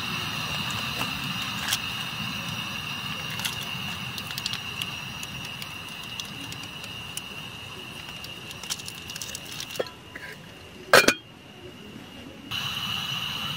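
Camping stove burner hissing steadily while tea is heated, with scattered clinks of pot and cups. Near the end the hiss drops out for about two seconds around one sharp knock, then returns.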